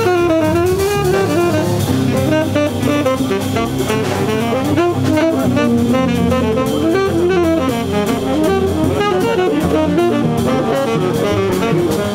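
Live small-group jazz: a saxophone plays a quick, winding solo line over drum kit with cymbals and a walking bass.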